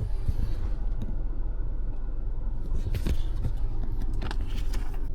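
Low, steady rumble of the Honda Passport's V6 engine idling, heard from inside the cabin, with a few light clicks about three seconds in and again near the end.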